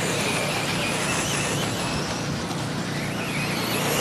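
Several 2WD radio-controlled buggies racing round the track, their motors making high whines that rise and fall in pitch over a steady bed of noise.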